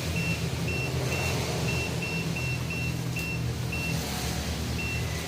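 FM 3520 hot-and-cold laminating machine running with a steady low hum. A short high beep repeats at uneven intervals, roughly two or three times a second.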